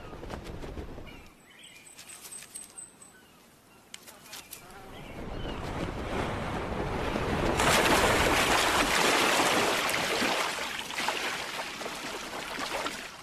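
Osprey plunge-diving into the sea: a rushing noise swells over several seconds to a loud peak, then tails off as water splashes.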